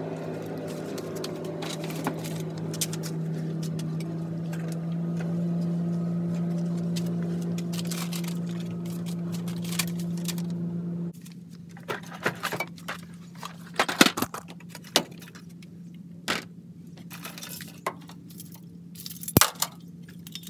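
Shop-vacuum-type motor running steadily while the truck cab floor is cleaned out, then shutting off abruptly about halfway through. After that come scattered clinks and rattles of loose debris and small parts being handled.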